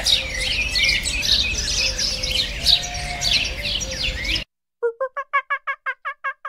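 Small birds chirping in a dense chorus of high, quick chirps. It cuts off abruptly about four seconds in, and after a brief gap a rapid run of repeated pulsed calls begins, about five a second.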